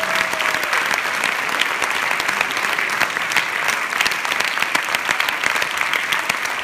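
An audience applauding steadily, a dense clatter of many hands clapping at once.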